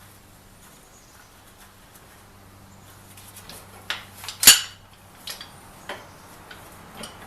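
Steel pipe-vise jaw and its mounting bolt and lock washer being handled into place: quiet at first, then a run of metal clinks and taps, with one louder clank about halfway through and a few lighter ones after.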